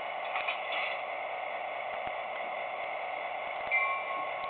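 Steady hiss, then near the end a model diesel locomotive's bell sound starts ringing, about once a second, from the HO scale EMD F7's sound system.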